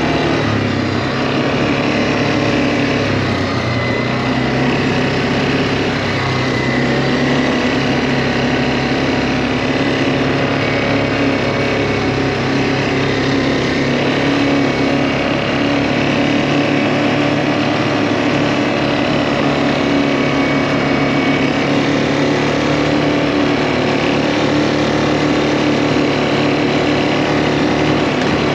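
Quad bike (ATV) engine running under way at a steady speed. It eases off briefly a few seconds in, then holds an even note.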